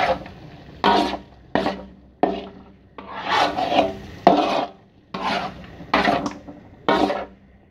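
A metal utensil scraping around a metal wok while stirring thick peanut sauce: repeated rasping strokes, a little more than one a second.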